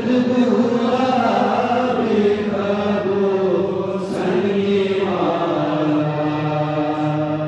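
A man chanting an Urdu qasida in praise of Ali, drawing out long melodic notes. There is a brief pause for breath about four seconds in, and he ends on a lower held note.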